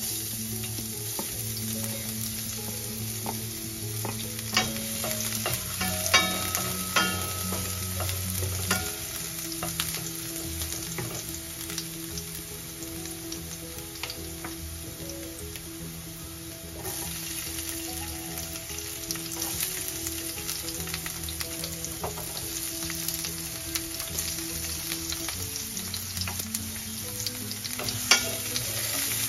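Minced garlic and chopped onion sizzling in hot oil in a stainless steel pan, a steady frying hiss. A bamboo spatula stirs and scrapes the food, knocking against the pan with a few sharp clicks.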